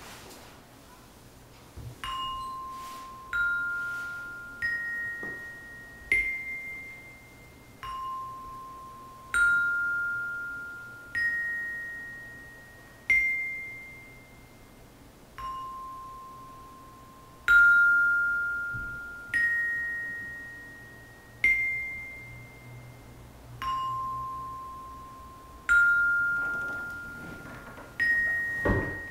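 Tekkin (metallophone) struck with a mallet, one note at a time, each ringing and fading: a slow four-note phrase rising in pitch, played four times over. A dull thump near the end.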